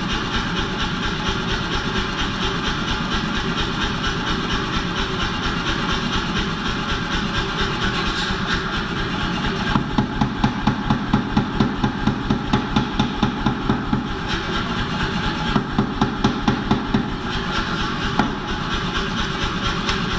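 Power hammer running while forging damascus steel bar. It strikes in two runs of rapid, even blows, about four a second, starting about halfway through, and its motor runs steadily between the runs.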